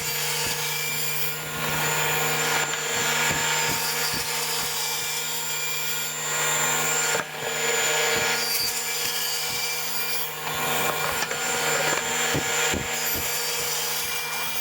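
Table saw running and cutting through the sides of a 3/4-inch marine plywood box to split off the lid, a steady motor hum under the loud noise of the blade in the wood.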